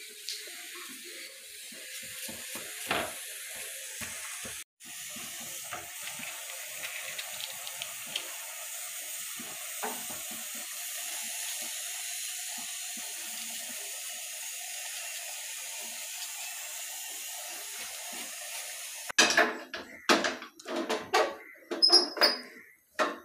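A steady hiss with a few small, faint taps. About 19 seconds in the hiss cuts off suddenly, and a metal kadai being handled on the stove gives a run of loud clanks and knocks.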